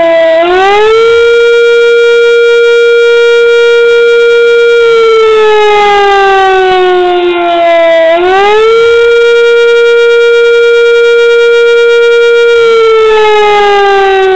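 1938 Fedelco civil-defense siren wailing: its pitch climbs quickly, holds steady for about four seconds, then slides slowly down, and the cycle repeats twice.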